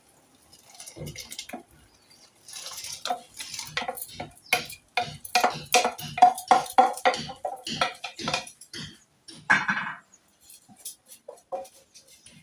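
A spoon knocking and scraping against a sufuria, an aluminium cooking pot, with a metallic ring on each stroke, as rice is put into the pot and stirred. The strokes come in a quick run of about three a second through the middle, then thin out to a few light knocks near the end.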